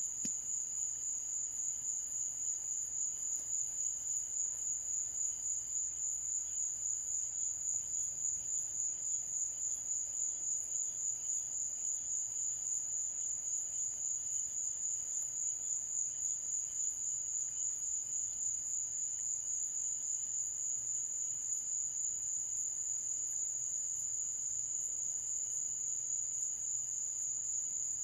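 Night insects singing in chorus: one high, continuous trill with a steady, regular pulse.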